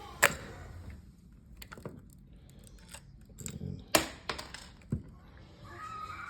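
Scattered sharp clicks and light metallic taps of screws and a screwdriver being handled against the smart lock's metal housing, the loudest just after the start and about four seconds in.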